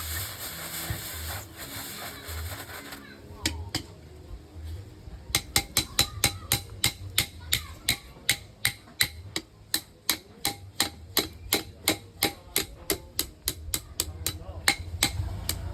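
Blacksmith's hammer striking iron on an anvil: a steady hiss for the first few seconds, a few single blows, then an even run of about three strikes a second from about five seconds in, each with a short metallic ring.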